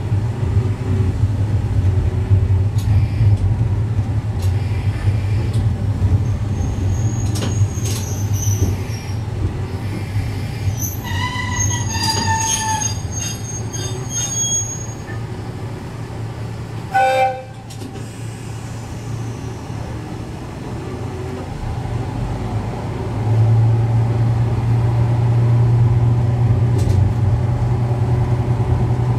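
Diesel railcar engine running with a steady low hum as the car rolls slowly through a station. A high metallic squeal from the running gear lasts a few seconds midway. A short horn toot comes about two thirds through, and the engine grows louder again near the end.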